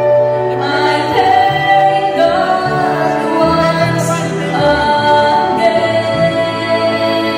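A woman singing a song with instrumental accompaniment, her melody moving in held notes.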